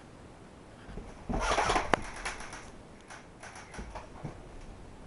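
Rustling and handling noise from clothing and gear close to the microphone, loudest about a second and a half in, with one sharp click just before the two-second mark and a few lighter taps and ticks after.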